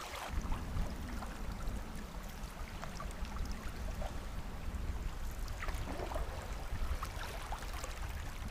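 Water of a shallow river swift running over rocks, a steady rushing with a low rumble underneath and small splashy ticks.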